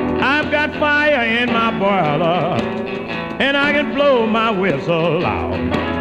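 Old blues record playing from a vinyl LP in mono: an instrumental passage with two phrases of a sliding, bending lead melody over steady guitar chords.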